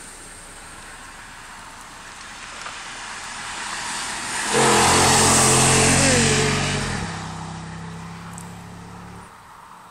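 Jeep Grand Cherokee SRT8's Hemi V8 at full throttle as it drives past: it builds up as it approaches, is loudest for about two seconds around the middle with its pitch dropping as it goes by, then fades down the road and dies away near the end.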